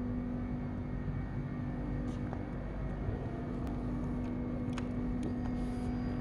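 A steady low hum with one constant tone, and a few light clicks about two, four and five seconds in.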